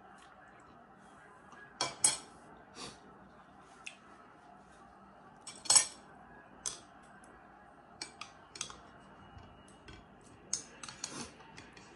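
Metal spoon and chopsticks clinking against a ceramic soup bowl in scattered, irregular taps, the loudest about two seconds in and again just before six seconds.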